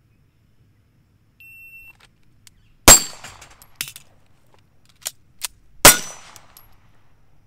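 A short electronic beep from a shot timer, then two loud pistol shots about three seconds apart, with a few lighter clicks between them.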